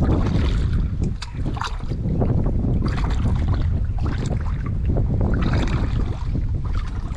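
Feet wading through shallow, muddy water, sloshing and splashing in several bursts, over a steady rumble of wind on the microphone.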